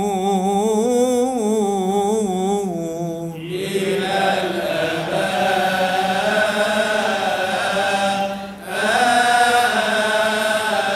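A man's voice chanting a long, ornamented melismatic line in Coptic Orthodox liturgical style, the melodic Amen closing the doxology before the Gospel reading. About three and a half seconds in the voice turns brighter and fuller, with a short breath break a little past two-thirds of the way through.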